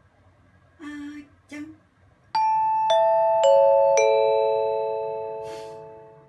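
Four bell-like chime notes struck one after another, stepping down in pitch about half a second apart, each left ringing so they overlap and fade together: an outro jingle. Before them, a voice makes two short sounds.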